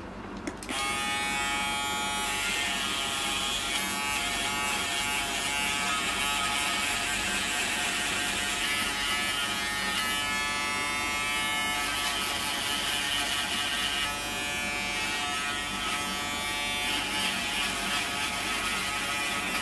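Braun electric shaver switched on about a second in, then buzzing steadily as it is worked over thick beard stubble around the mouth and chin, its pitch wavering slightly as the head presses against the face.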